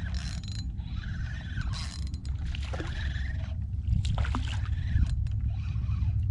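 Steady low rumble of wind on the microphone, over which come several short tones that rise and fall, about a second each, and a few sharp clicks around the middle.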